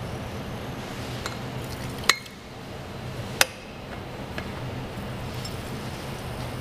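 Glass Pyrex conical flasks clinking as they are handled on the hot plate: two sharp clinks about two and three and a half seconds in, with fainter taps around them, over a steady low hum.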